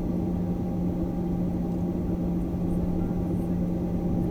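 Steady airliner cabin noise: the jet's engines and air systems running with a constant low hum and an even rumble underneath.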